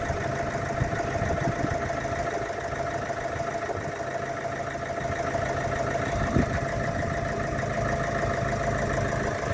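Mercedes Vito van's freshly fitted replacement engine idling steadily, with a steady whine running alongside the low rumble.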